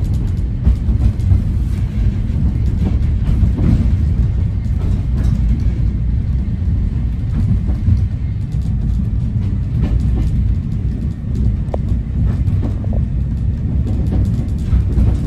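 Heritage railway passenger coach running along the line, a steady low rumble of wheels on rail with occasional short clicks.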